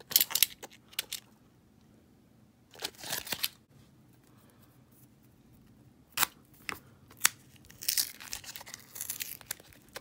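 Paper half-dollar coin roll wrapper being torn open and crinkled, with a few sharp clicks, in short bursts separated by quiet gaps.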